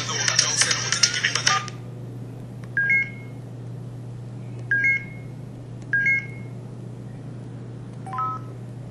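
MS280 mobile phone's built-in sound effects: a noisy hissing effect that stops about a second and a half in, then three short two-note rising beeps spaced a second or two apart, and a quick three-note rising chirp near the end. A steady low hum runs underneath.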